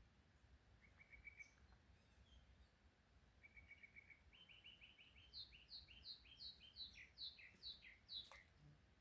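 A songbird singing faintly. It gives a short trill about a second in, then a run of quick repeated notes that climbs in pitch and turns into a string of louder down-slurred notes near the end.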